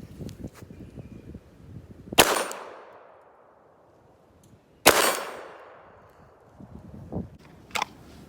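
Two shots from a Glock 19 9mm pistol, about two and a half seconds apart, each with a long echoing tail. A couple of fainter sharp clicks follow near the end.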